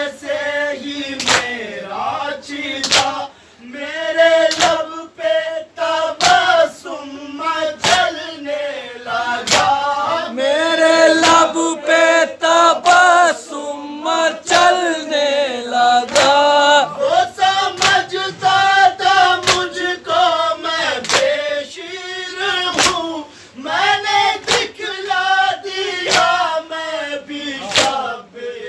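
A men's group chanting a noha, a Shia mourning lament, led by a male reciter on a microphone. It is set to the rhythmic slaps of matam, hands beating on chests in a steady beat.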